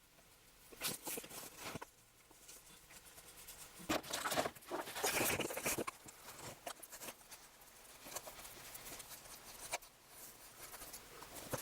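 Scratching and rubbing hand-work on a small metal object, with scattered light clicks and a longer, louder stretch of scraping about four to six seconds in.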